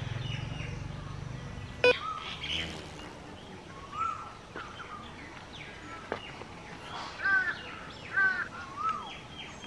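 Crows cawing outdoors, a few separate calls with the loudest cluster near the end, among other birds. A sharp click about two seconds in, and a low rumble that fades out over the first two seconds.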